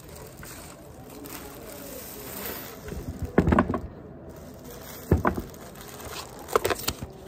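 Handling noise from unboxing a metal laptop stand: packaging rustling, with a few sharp knocks and clacks as the stand is set down and adjusted on the desk, in three clusters about a second and a half apart.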